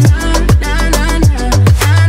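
Background music with a steady beat: deep bass notes and a kick drum about twice a second, ticking cymbals and a melody on top.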